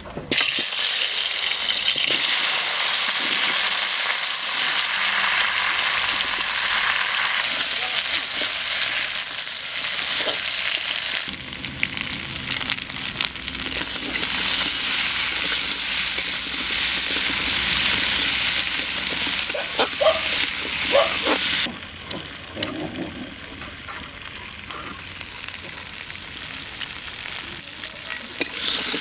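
Cubes of raw potato tipped into hot oil in a metal wok, starting a loud sizzle at once, then frying while a metal spatula stirs and scrapes them against the pan. The sizzle drops to a quieter level about three-quarters of the way through.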